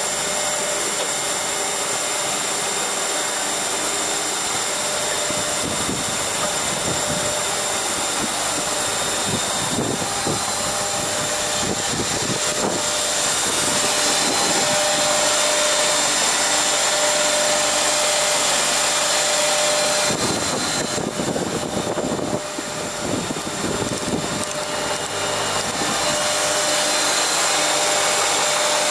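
Leadermac LMC 423C four-sided planer/moulder running, its cutter-spindle motors and feed giving a steady whine and hum. It grows a little louder about halfway through and turns uneven, with more low rumble, for a few seconds about two-thirds of the way in.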